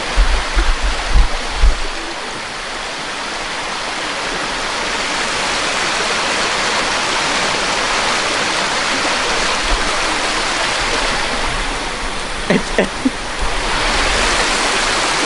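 Stream rushing over rocks, a steady hiss of running water that grows a little louder midway, with a few low thumps in the first two seconds.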